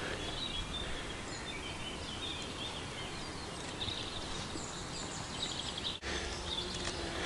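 Outdoor ambience: steady wind noise on the microphone with faint, scattered bird chirps. It drops out briefly about six seconds in.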